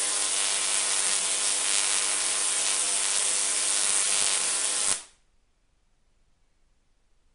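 Homemade spark-gap Tesla coil firing, its sparks and streamers making a loud, harsh buzzing hiss that cuts off suddenly about five seconds in.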